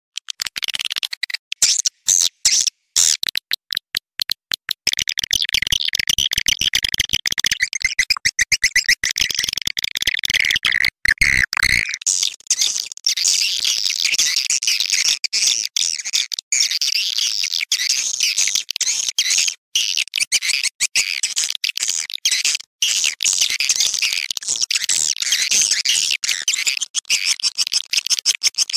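Recorded swiftlet calls: dense, rapid high-pitched twittering and chirping, choppy and clicking at first and then a more continuous chatter from about five seconds in. This is the kind of swiftlet lure sound that is played to draw swiftlets into a nesting house.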